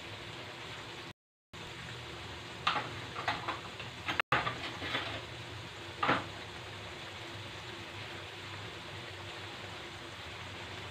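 Tomato-and-chilli sauce simmering and sizzling in a steel wok: a steady hiss with a run of sharper pops and spatters from about two and a half to five seconds in and one more near six seconds. The sound cuts out completely twice for a moment.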